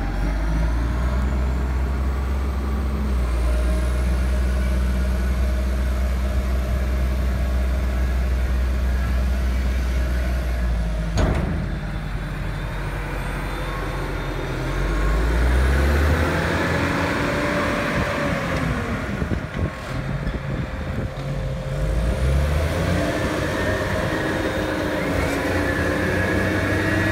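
Diesel engine of a JCB 722 articulated dump truck running as the truck drives slowly past, its pitch shifting as it turns and moves on; a single sharp click about eleven seconds in.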